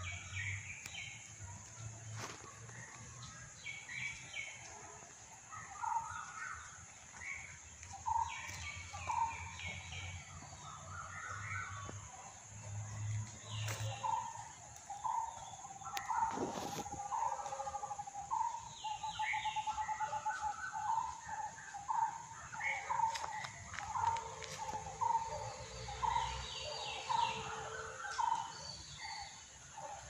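Outdoor birdsong from several unseen birds over a steady high hiss: scattered short chirps and whistles, and from about halfway a short note repeated roughly once a second, with a brief trill.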